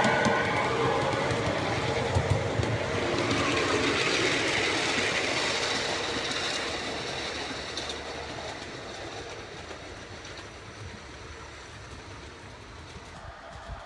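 5-inch gauge miniature locomotive, modelled on the diesel D832 Onslaught, running past while hauling a train of cars. It is loudest in the first few seconds and fades steadily as the train moves away.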